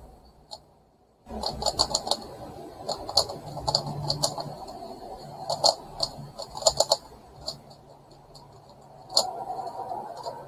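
Plastic megaminx puzzle being turned quickly by hand: rapid, irregular clicking and clacking of its faces in quick clusters, after a brief near-silent pause about a second in.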